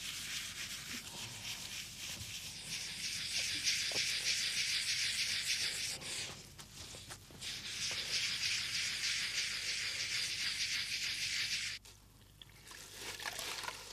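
Hand sanding of a stucco-marble (scagliola) surface: a steady hiss of abrasive strokes that pauses briefly about six seconds in, resumes, and stops near the end.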